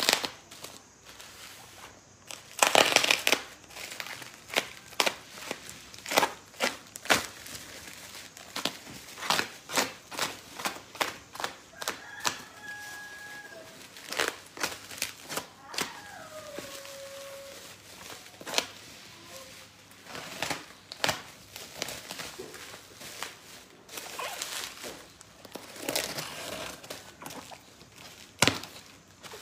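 Black plastic parcel wrapping being cut and torn off a cardboard box: a run of sharp crinkles and crackles, with a few louder rips about three seconds in and again near the end.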